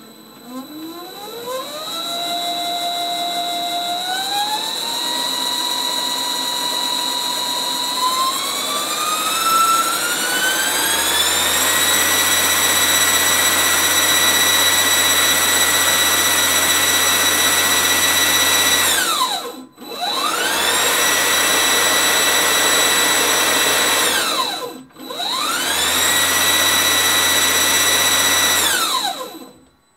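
Benchtop lathe driven by a three-phase electric motor on a variable-frequency drive. The motor's whine climbs in pitch in three steps as the speed is turned up from 100 RPM, then holds steady, over a constant high-pitched whine. Twice the speed ramps down to a near halt and quickly back up, and near the end it winds down to a stop.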